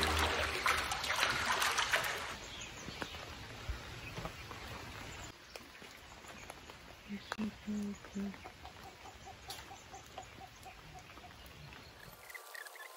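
Background music fading out in the first two seconds, then faint outdoor ambience of rain. About seven to eight seconds in come a few short, low animal calls.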